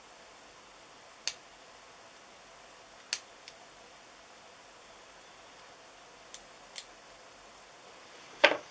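Small gas lighter being clicked and handled: six sharp, irregular clicks, the last, near the end, the loudest.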